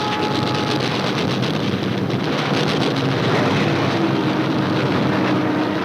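Steady mechanical roar, engine-like, with a few held tones and faint crackle from an old film soundtrack.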